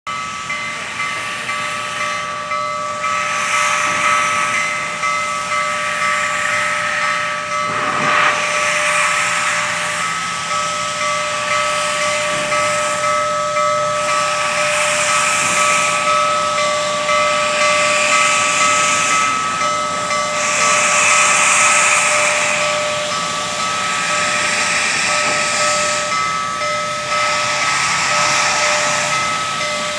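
Union Pacific 844, a 4-8-4 steam locomotive, getting under way with its cylinder cocks open: steam hissing out in swells every two to three seconds to blow excess water from the cylinders, while its steam whistle sounds a long, steady chord.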